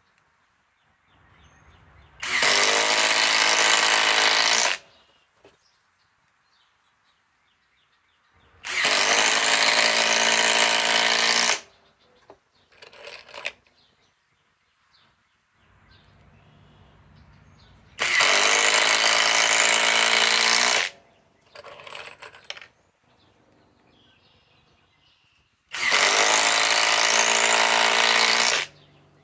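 SKIL PWR CORE 20 impact driver (1800 in-lb) hammering four 4-inch GRK structural screws into a thick wooden block, each drive lasting about three seconds. Each drive starts with a brief, quieter spin before the hammering kicks in as the screw bites. Between drives there are a few short, weaker bursts of the driver.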